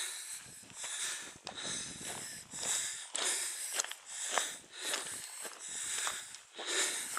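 A hillwalker breathing hard and fast after a climb: a steady run of short breaths in and out, about one every half second to second.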